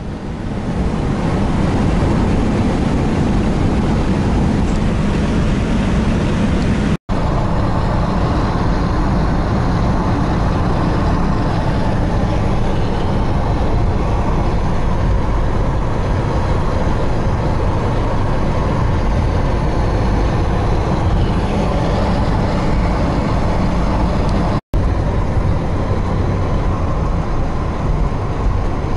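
Steady road noise inside a moving car: the engine and tyres running on asphalt. The sound cuts out completely for an instant twice, about a third of the way in and near the end.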